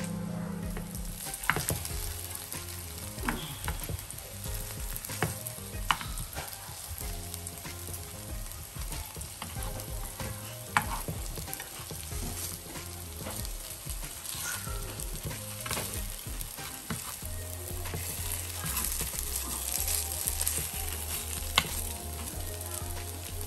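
Hash browns sizzling as they shallow-fry in oil in a non-stick frying pan, with occasional sharp clicks of a metal spoon against the pan as they are turned.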